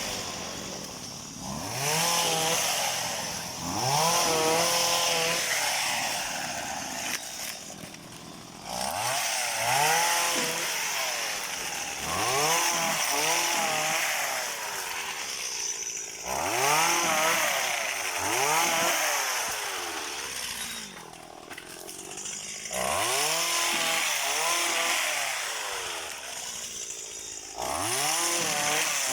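Small two-stroke engine of a motorized oil palm pruning machine, revved up in repeated bursts every few seconds and eased back between them as the fronds are cut.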